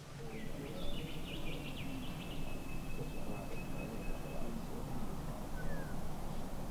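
Birds calling over a steady outdoor background: a run of quick high chirps, then one long held high note, and a short falling note near the end.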